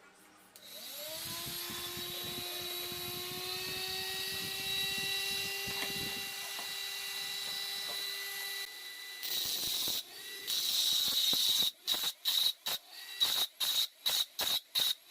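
Small DC mini grinder motor spinning up about a second in and running steadily at a settled pitch. Near the end it is pulsed on and off in short rapid bursts.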